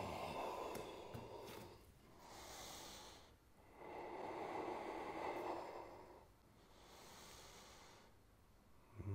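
Faint, slow, deep breathing of a person holding a yoga hip stretch: about two full breaths, each a long airy rush followed by a shorter, higher-pitched hiss.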